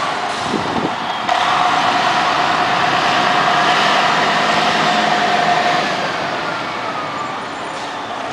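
Coach bus's diesel engine pulling away and fading as it drives off, with a steady whine over the middle of the stretch.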